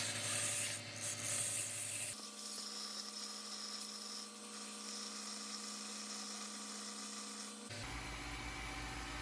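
Homemade 2x72 belt grinder running: a steady electric motor hum and whine over a hiss. The sound changes abruptly about two seconds in and again near the end.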